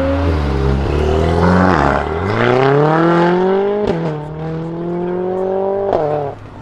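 Two performance cars accelerating hard away, engine pitch climbing through the gears: first a McLaren supercar, then a Mercedes-AMG A45 S with its turbocharged four-cylinder and decat Akrapovic exhaust. The A45 S gives a sharp crack at each upshift, about four and six seconds in.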